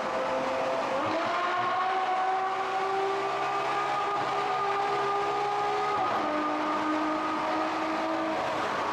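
Ferrari F12 Berlinetta's V12 engine heard from the passenger seat: the revs jump up about a second in, as on a downshift, climb slowly under steady throttle, then drop about six seconds in with an upshift and hold steady.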